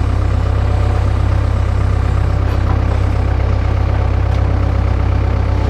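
Skid steer engine running steadily with a deep, even hum.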